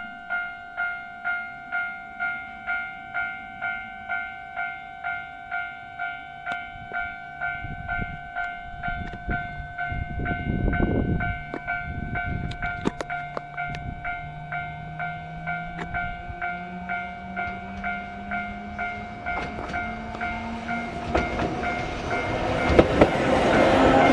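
Level-crossing warning bell ringing in steady repeated strikes, a little under two a second, as a Sangi Railway Hokusei Line narrow-gauge (762 mm) train approaches. From about halfway a rising whine from the train's motors comes in, and wheel noise on the rails grows louder toward the end.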